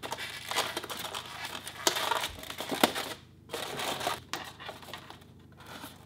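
Crinkling and rustling of a black cardboard vent funnel being pressed and taped onto a styrofoam cooler lid, with scattered sharp clicks and taps and two brief pauses.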